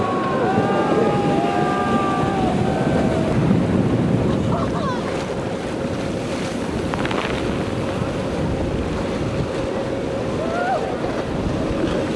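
Wind on the microphone over the rush of breaking surf, with a steady boat engine hum from about five seconds in. People whoop in the first few seconds.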